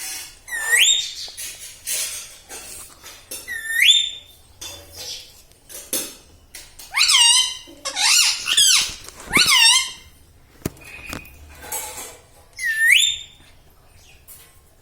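Indian ringneck parrot calling: sharp rising calls, once near the start, once about four seconds in and once near the end, with a quick run of calls between about seven and ten seconds in.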